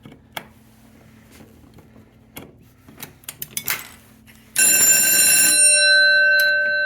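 Vintage 120 VAC Edwards fire alarm bell, sounded in an alarm test. It sets off suddenly and loudly about two-thirds of the way in: the striker rattles against the gong for about a second, then the gong rings on steadily. A few light clicks and knocks come before it.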